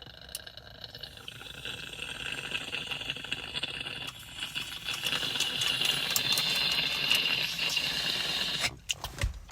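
Water bong bubbling through one long, steady pull, growing gradually louder and stopping suddenly near the end.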